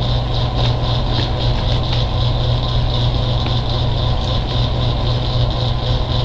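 A steady low hum with thin higher tones above it, unchanging throughout, with faint crunches of popcorn being chewed.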